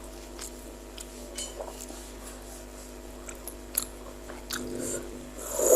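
Person chewing food close to the microphone, with scattered small wet mouth clicks over a faint steady hum. A louder short sound comes right at the end.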